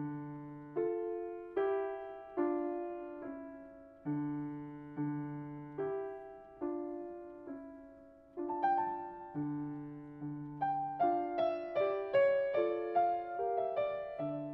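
Slow solo piano music: sparse chords struck and left to fade, with a quicker, higher melody coming in a little past halfway.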